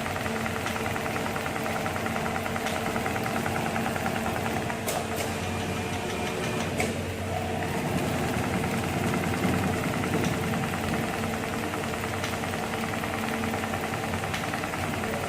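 HEMS 250 CNC programmable-pattern sewing machine (frame-type automatic stitcher) running steadily, its needle stroking in a fast, even rhythm over a steady hum, with a couple of sharp clicks about five and seven seconds in.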